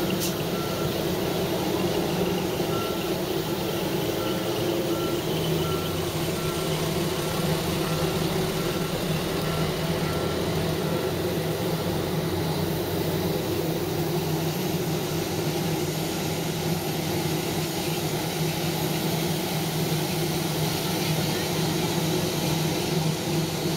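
Steady loud engine hum on an airport apron, from the airport bus pulling away and the parked Airbus A320, with a repeating electronic warning beep that stops about halfway through.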